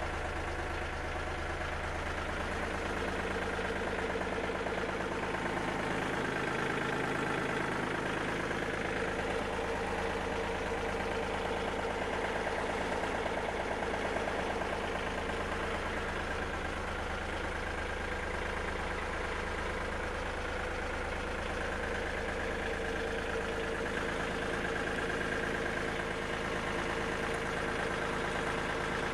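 Yanmar CT226 full-crawler tractor's diesel engine idling steadily, heard from inside the cab.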